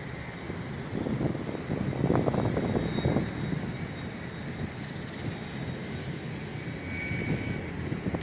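Jet aircraft engines rumbling at the airport, a low uneven roar that swells about two to three seconds in and then eases, with a faint steady high whine above it.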